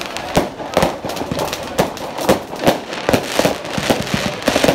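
New Year's Eve fireworks and firecrackers going off all around: a rapid, irregular run of sharp bangs and crackles, some louder than others.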